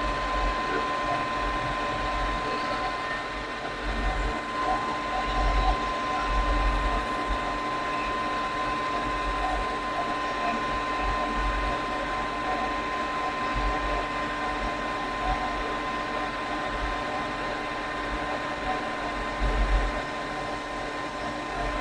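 Conventional lathe running steadily with its spindle turning while a facing cut is fed in toward the centre of the workpiece: an even machine hum with a constant high whine over it.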